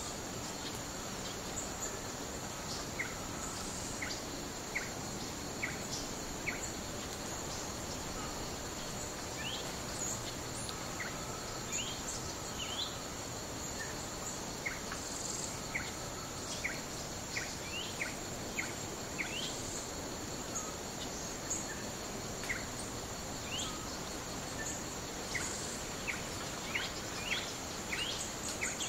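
Natural woodland ambience: a steady high insect drone with many short, quick rising chirps of small birds scattered throughout.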